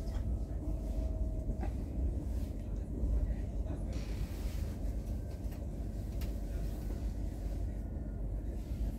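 Steady low rumble of a passenger train running, heard from inside the carriage, with a faint thin whine over it and a few light clicks.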